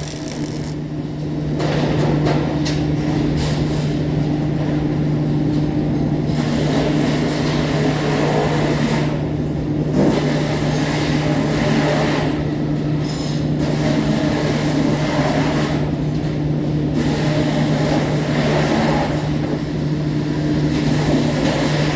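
Arc welding on galvanized iron: a steady crackle from the arc over a constant low electrical hum, with the crackle dropping away briefly several times where the arc breaks.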